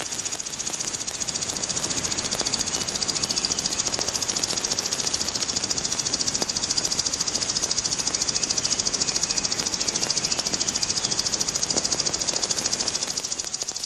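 A steady, high hissing rattle that pulses rapidly and evenly, fading in at the start and fading out near the end.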